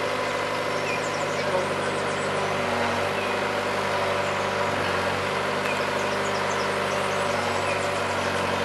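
Bobcat 430 compact excavator's diesel engine running steadily at a constant speed, its pitch shifting slightly a couple of times.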